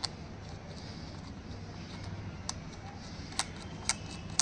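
Small sharp plastic clicks from a DJI Mini 2 SE remote controller as its control sticks are screwed into place by hand: one at the start, one midway, and three in quick succession near the end, over a steady low background hum.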